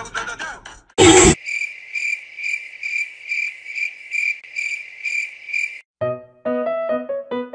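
A loud short burst of noise about a second in. It is followed by cricket chirping: a high, evenly pulsing trill at about two and a half pulses a second that lasts about four seconds and stops abruptly. Piano music starts near the end.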